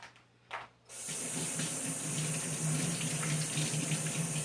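Kitchen tap turned on about a second in, water running steadily into the sink, after a couple of small knocks.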